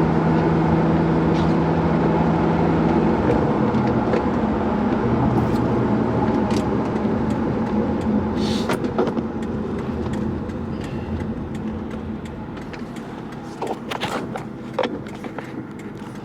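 2003–04 Mustang Cobra's V8 running as the car is driven, a steady engine drone that eases off and gets quieter about ten seconds in, with a few sharp clicks near the end.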